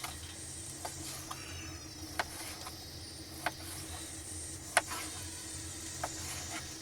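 Knife cutting meat on a board: sharp single taps at irregular intervals about a second apart, over a steady low hum.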